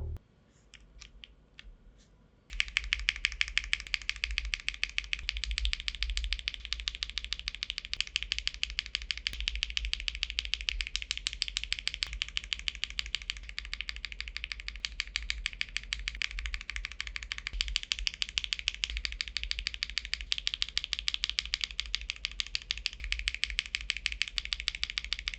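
Mechanical keyboard with HMX switches being typed on fast, a dense run of key clicks and clacks. A few faint clicks come first, and the steady typing starts about two and a half seconds in.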